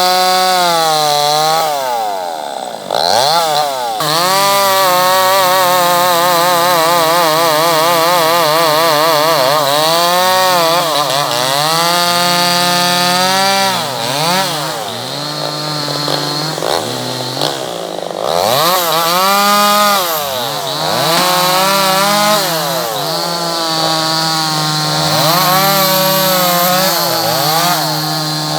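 Chainsaw engine running hard, its pitch rising and dipping again and again as it cuts wood, with a fast wavering in the middle of the stretch.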